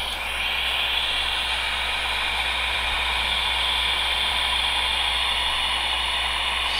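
Dremel butane soldering iron hissing steadily as its heated tip is held to a twisted wire joint to solder it.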